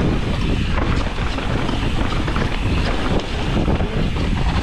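Wind buffeting the rider's camera microphone over the tyre noise of a mountain bike rolling fast down a dirt trail, with constant small clicks and rattles from the bike.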